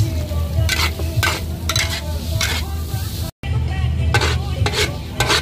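Food sizzling on a hot pan while a metal spatula stirs and scrapes it, sharp strokes about twice a second, over a steady low rumble. The sound cuts out for an instant about two-thirds through.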